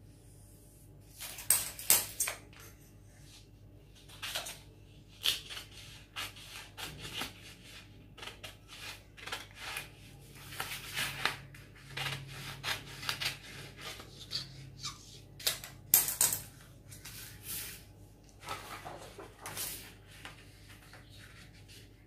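Pen scratching lines onto a paper blouse pattern along a steel ruler, with paper rustling and the ruler being shifted: a string of short, irregular scratching strokes.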